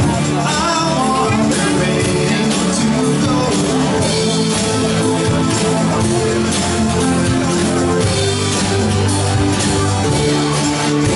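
Live band playing a rock-style song: drum kit, electric bass, acoustic guitar, keyboard and hand drum together, with a voice singing over them.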